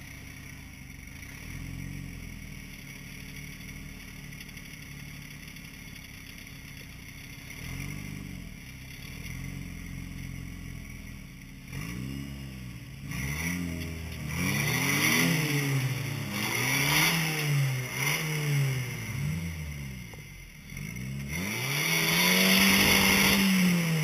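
Rock crawler's engine idling low, with a couple of small blips, then from about halfway revving hard again and again, the pitch rising and falling about once a second as the truck is worked up a rock ledge. After a short drop, one long, loud rev is held near the end.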